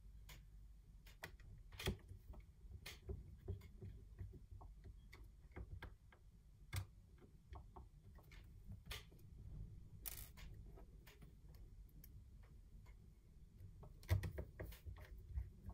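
Faint, irregular clicks and taps of plastic drone body parts being pressed and fitted together by hand, with small tools handled on a wooden tabletop, during reassembly of a DJI Mavic Air. A quicker run of taps comes near the end.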